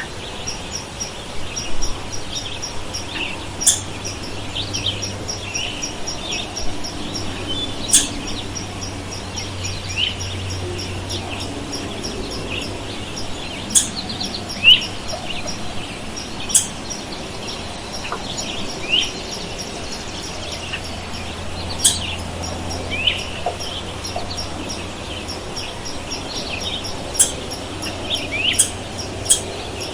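Forest ambience of many birds chirping: short rising calls come one after another throughout, over a steady series of faint high ticking notes, about three a second, and an even background hiss.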